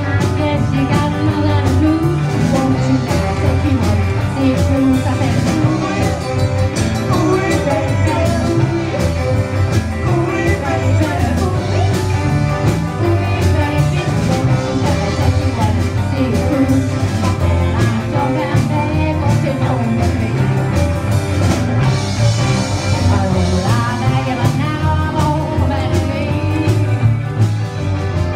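Live rock and roll band playing with a steady beat: electric guitar, upright double bass, drums and saxophone, with a woman singing.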